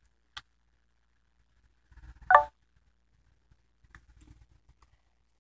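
Android phone camera taking a photo: a sharp click, then about two seconds in a short pitched shutter sound, followed by a few faint light taps.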